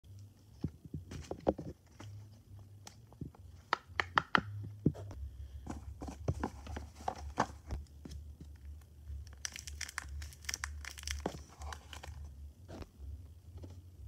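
Hands handling plastic fidget toys and a clear plastic storage box: a string of small clicks, taps and knocks, with a stretch of crinkling about ten seconds in.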